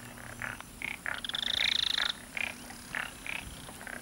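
Frogs calling: short calls repeating several times a second, with a louder, higher rapid trill lasting about a second near the middle.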